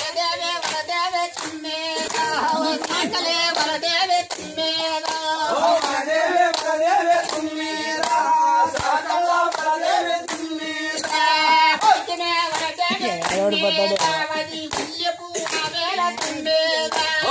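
A group singing together with rhythmic hand clapping, about two to three claps a second, keeping time for a circle dance.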